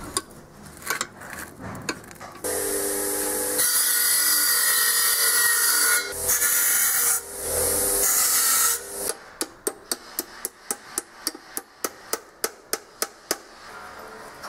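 Workshop tool sounds. A power tool runs with a steady hum and a loud hiss for several seconds, then a quick series of sharp knocks follows, about four or five a second.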